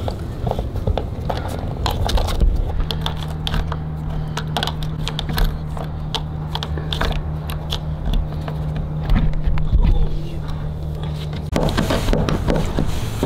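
Close handling noise of a surfboard's broken fin being repaired: scattered clicks, taps and scrapes of hands and small tools on the board and fin. A steady low hum runs through the middle.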